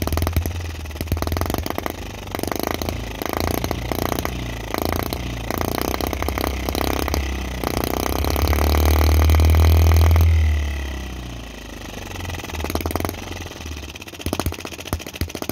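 Microcosm M25 miniature side-shaft four-stroke model gas engine running with rapid firing. About halfway through it is sped up to a fast run, rising in pitch and loudness over several seconds, then throttled back so it quickly slows to a lower speed.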